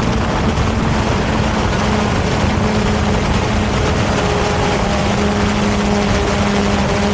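Quadcopter drone's propellers buzzing in flight: a steady hum that grows clearer about halfway through, over a dense rushing noise.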